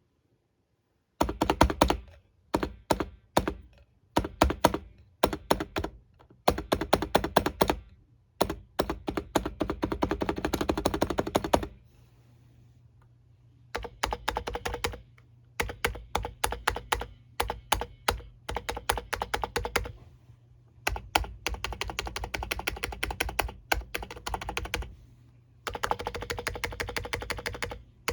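Typing on a Hansung GK868B electrostatic capacitive keyboard with 50g switches and stock stabilizers: keystrokes click in fast bursts of several per second, with a pause of about two seconds near the middle.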